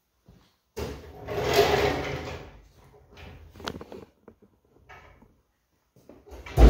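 Handling noises and a few knocks as a lamb carcass is lifted and carried. Near the end a meat-cutting band saw is switched on and its motor starts up, suddenly loud and then steady.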